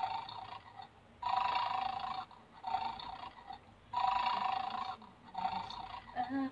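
Electronic toy bulldog playing its recorded snoring sound through a small speaker: a buzzy snore of about a second, repeating roughly every two and a half seconds, with quieter breaths between. The snoring is the sign that the dog is in its 'asleep' state.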